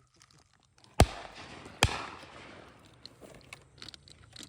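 Two shotgun shots fired in quick succession, a little under a second apart, each echoing and fading away afterwards.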